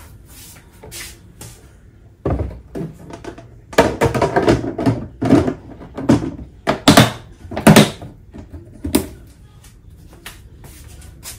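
Hard plastic food-storage containers being handled: a lid and carrying handle clicked on and the caddy knocked on the counter, a string of sharp plastic knocks and clatters starting about two seconds in and stopping about nine seconds in.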